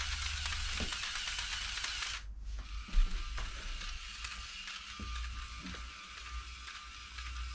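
The two motors of a LEGO Mindstorms 51515 walker running and cycling its crank-driven plastic legs with a steady mechanical whirr and a faint motor whine. The running stops briefly about two seconds in, then starts again, with one low thump right after it restarts.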